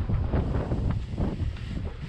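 Wind buffeting a helmet camera's microphone while riding a bike fast down a dirt trail, with rumbling tyre noise and many small knocks from the bumps.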